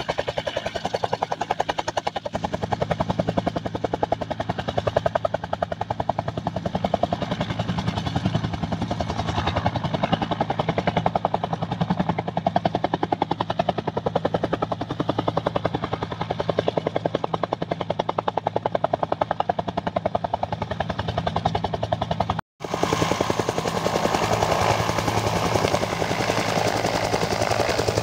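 Agusta-Bell 205 helicopter running with its two-bladed main rotor turning, a fast even beat of the blades over the turbine. After a brief dropout about 22 seconds in, it is louder and closer, now in flight.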